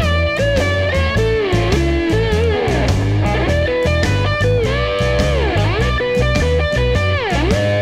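Background rock music led by an electric guitar with bending lead notes, over bass and a steady beat.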